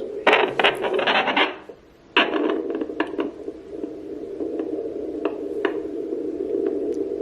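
Handheld Neeva Baby fetal Doppler's speaker giving a steady low hiss while its probe is slid over gel on the belly searching for the fetal heartbeat, with loud scraping crackles as the probe moves, strongest in the first second and a half and again just after two seconds. The hiss briefly cuts out a little before two seconds in.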